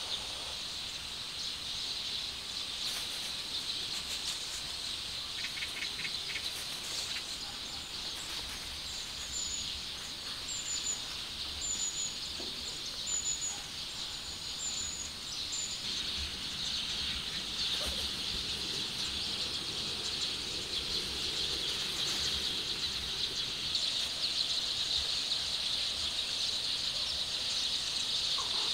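Outdoor ambience: a steady high-pitched hiss, with a bird giving a series of short high chirps, about one a second, from about nine to fifteen seconds in.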